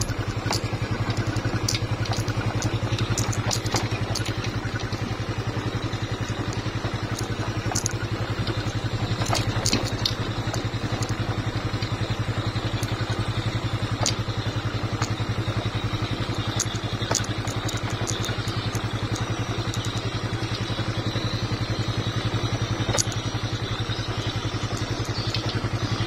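Small motorcycle engine running steadily while riding along a rutted dirt track, with scattered short knocks and rattles.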